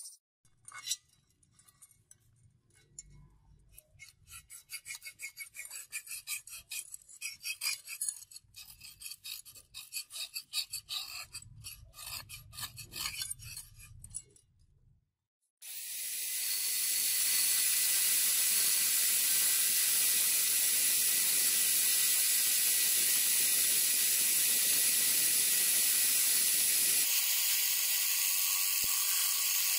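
Rapid, irregular scratching strokes of metal on the steel cleaver blade as a line is scribed with caliper jaws. About halfway in, a high-speed rotary tool with a small grinding bit starts up and runs steadily with a high whine and hiss, grinding a groove along the blade.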